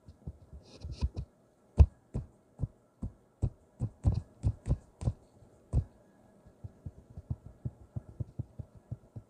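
Irregular low thumps and taps, several a second, stronger in the first six seconds and softer toward the end, over a faint steady hum.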